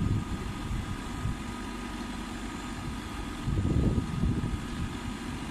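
Maxxi NDR 102L combine harvester engine running steadily, with a thin steady whine above a low rumble. The rumble surges louder for a moment about three and a half seconds in.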